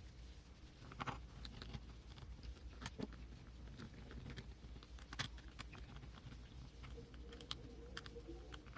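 Faint, scattered clicks and taps of small plastic and metal RC car transmission parts being handled and fitted together by hand, with a few sharper clicks among them.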